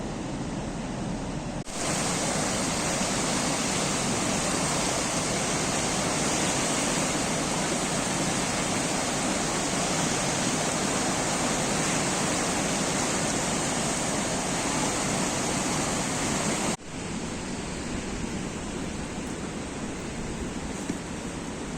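Steady rushing water. It grows louder and brighter abruptly about two seconds in and drops back just as suddenly about seventeen seconds in.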